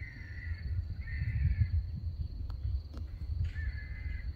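A bird calling three times, each call about half a second long and steady in pitch, over a low rumble, with two sharp clicks in between.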